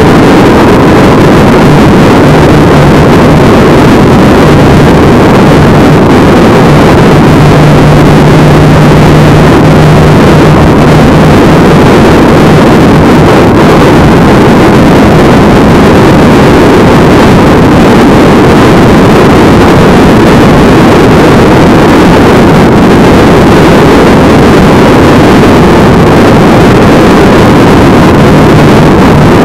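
Loud, steady wind and road noise from a vehicle cruising at highway speed, with a low engine drone that comes and goes.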